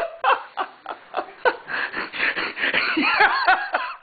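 People laughing in short fits of giggles and snickers, rising to higher-pitched laughs about three seconds in.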